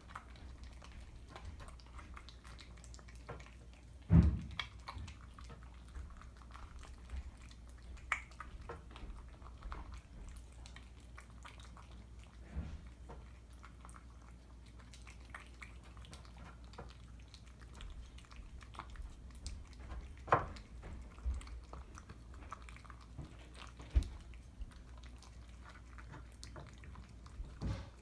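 Two cats eating wet food from glass bowls: soft, steady chewing and smacking with many small wet clicks, broken by a few louder sharp knocks.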